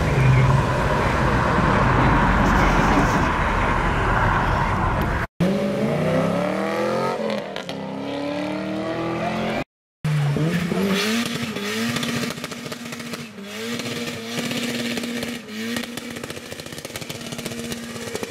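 Cars accelerating hard one after another. First a blue Alfa Romeo Giulia saloon pulls away under heavy throttle. Then, after two brief cuts, an engine revs up in rising pitch, and a white Mazda MX-5 is held at high, steady revs while spinning its rear tyres, which squeal and smoke.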